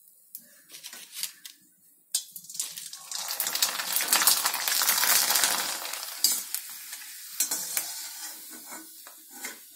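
Hot oil in an iron karahi sizzling as a rice papad fries, starting suddenly about two seconds in, loudest a couple of seconds later, then dying down, with light clicks of a metal slotted spoon against the pan. The gas is already off and the oil is frying on its stored heat.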